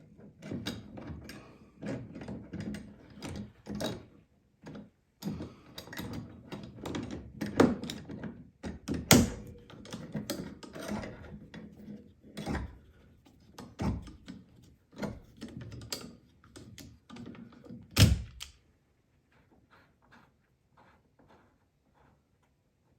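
Irregular clicks, knocks and clatter of hand tools and metal parts being handled while working a broken hinge screw out of a door jamb, with two sharp loud knocks, one about halfway and one late.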